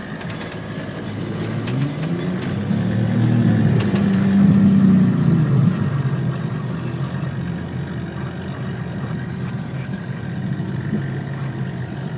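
Four-wheel-drive vehicle's engine, heard from inside the cab, revving under load while wading through deep floodwater. Water sprays over the windscreen at the start. The revs climb over the first few seconds, peak about four to five seconds in, then ease back to a steadier run.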